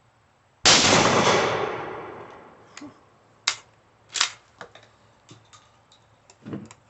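A single 12-gauge shotgun blast about half a second in, its report echoing away over a second or so. It is followed by several light, sharp clicks and knocks.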